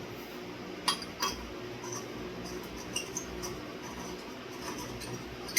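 Glass tulip shades clinking against the metal fitters of a ceiling fan light kit as they are fitted: two sharp clinks close together about a second in, another around the middle and one at the end.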